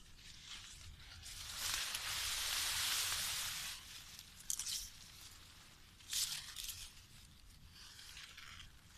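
Long leaves of a tall forage crop rustling and brushing against the phone as it is pushed through the stand: a long rustle of about two seconds, then two short sharp crackles.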